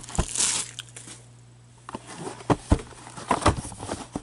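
Cardboard trading-card box handled by gloved hands: a brief rustle, a short pause, then a string of light knocks and taps as the box is worked open. A faint steady hum sits underneath.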